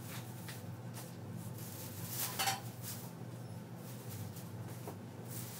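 Plastic shopping bag rustling in a few short bursts as skeins of yarn are lifted out of it, the loudest about two seconds in, over a steady low hum.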